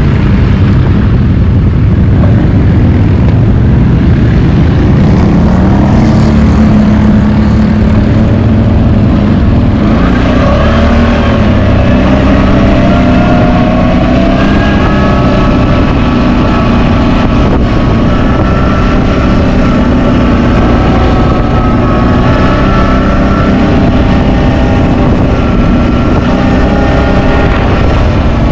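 CFmoto X8 ATV's V-twin engine running under way over rough ground, loud and continuous. About ten seconds in, a whine rises in pitch and then holds steady.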